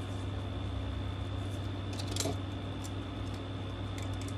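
Steady low hum with a faint high whine, and a few light ticks and rustles from craft materials being handled, about two seconds in and again near the end.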